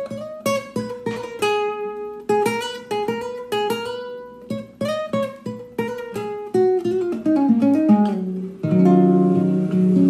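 Acoustic guitar playing a single-note blues lick, each note plucked and ringing briefly, with a descending run near the end settling into a held, louder chord about nine seconds in.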